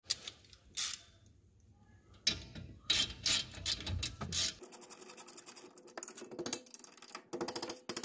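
Metal clicks and knocks from hand tools working the caliper guide bolt of a car's front brake caliper during reassembly, ending in a fast, even run of clicking from about halfway through.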